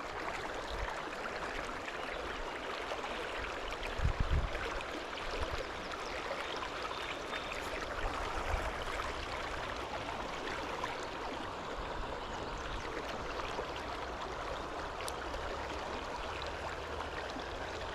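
Creek water running steadily, with a few low thumps about four seconds in.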